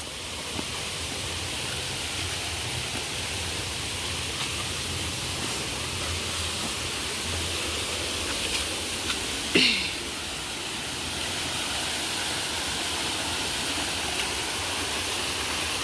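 Steady rushing of a flowing stream. A single short sound a little past halfway glides down in pitch.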